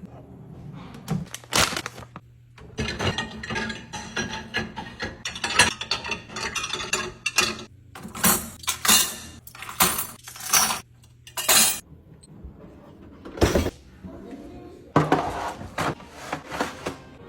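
Glass jars and kitchen containers clinking and knocking together in quick, irregular taps and set-downs as they are handled and arranged.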